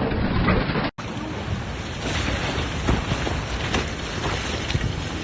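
Storm-force wind blowing hard and buffeting a phone microphone in a windstorm, a dense steady rush with gusts. About a second in it cuts out for an instant and picks up again from a second recording.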